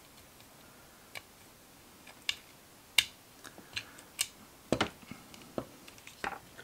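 Irregular small clicks and ticks of a tiny screwdriver driving a small screw into a Goat Guns miniature AK-47 replica, with a few louder handling clicks and knocks in the second half.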